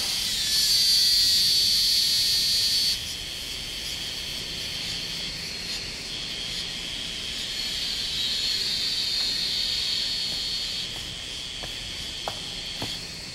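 A steady high-pitched hiss that drops to a lower level about three seconds in and carries on softer, with a few faint clicks near the end.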